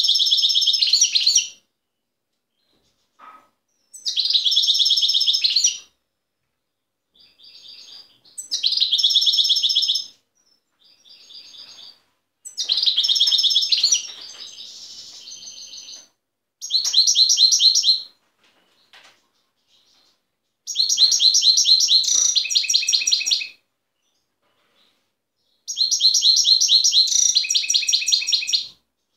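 Wild-caught European goldfinch singing rapid twittering song in about seven phrases of one to three seconds each, with short pauses between.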